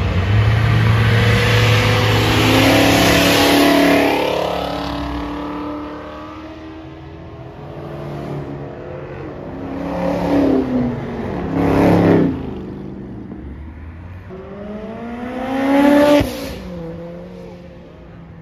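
A string of cars accelerating hard past, one after another, engines revving loudly. The first pass is the longest and loudest, two shorter revving passes follow about ten and twelve seconds in, one of them a Dodge Challenger, and near the end a last car's engine note rises and then drops sharply at a gear change.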